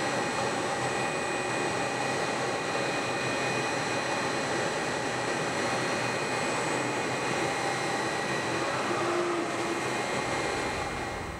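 Stationary vertical-auger feed mixer (BvL V-Mix Plus) running, its auger churning silage, with a steady mechanical hum and a whine. It fades down near the end.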